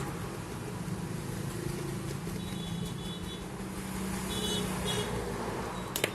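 Steady low rumble and hum of background road traffic, with a few faint high-pitched chirps midway and a sharp click near the end.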